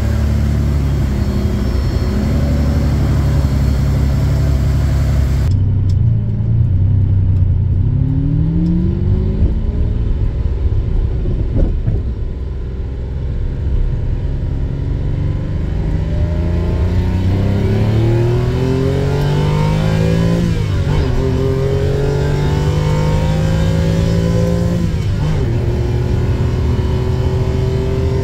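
Lamborghini Countach V12 idling steadily, then, heard from inside the cabin after a cut, accelerating hard through the gears: the engine note climbs, drops back at an upshift, and climbs again, with about three upshifts.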